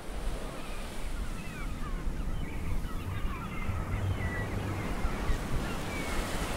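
Ocean surf: a steady rushing wash of waves fading in at the start, with many short high chirps scattered over it.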